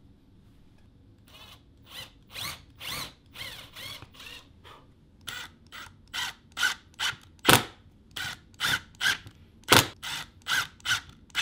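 Power driver running in short trigger bursts, driving screws into plywood, with a couple of sharper, louder cracks as screws seat.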